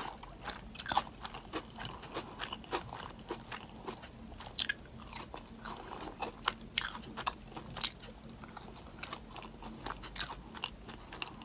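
A person chewing animal style fries (fries topped with melted cheese and sauce) close to the microphone: many small, irregular crunches and mouth clicks.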